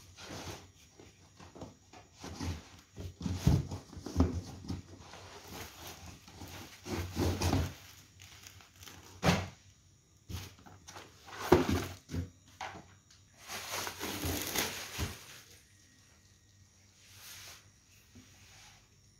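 Hands rummaging in a cardboard box among paperboard gift boxes and bags: irregular rustling and scraping of cardboard and paper, with a few sharp knocks and a longer rustle about fourteen seconds in.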